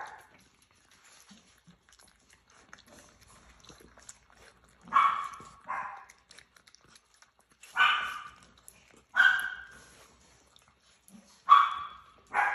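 A small dog barking: short, sharp barks, about six of them in loose pairs, starting about five seconds in.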